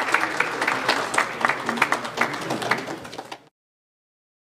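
A room of people applauding, dense clapping with a murmur of voices underneath. It thins out and then cuts off abruptly about three and a half seconds in.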